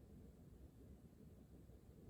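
Near silence: faint, steady low room tone.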